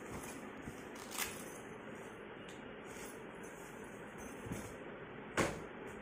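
A school bag being handled on a sofa: quiet rustling over room noise, with two short knocks, the louder one near the end.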